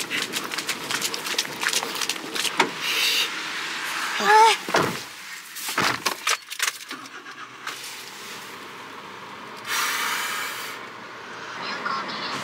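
Footsteps crunching on fresh snow, then the door of a snow-caked kei van being opened and handled, with a brief voice exclamation about four seconds in and a few dull thumps after it.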